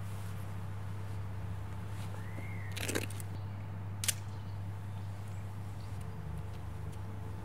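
A film camera's shutter released once, a single sharp click about four seconds in, over a steady low hum. Shortly before, a brief tone rises and falls and ends in a rough scrape.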